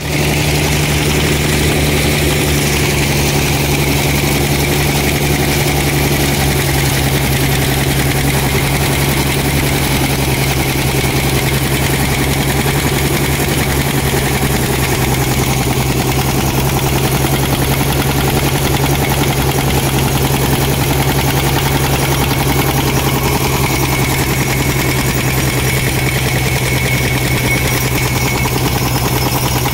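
Eicher 242 tractor's diesel engine running steadily under load, driving a wheat thresher through its PTO shaft and belt, together with the thresher's spinning drum as wheat straw is fed in. A loud, even, low mechanical drone that does not change.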